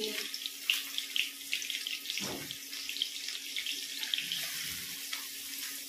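Cumin seeds and chopped green chillies sizzling in hot oil in a steel kadhai, a steady hiss with small crackles. A soft knock comes about two seconds in.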